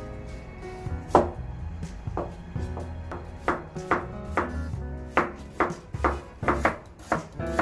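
Kitchen knife slicing a cucumber on a wooden cutting board, a crisp chop about twice a second, over background music.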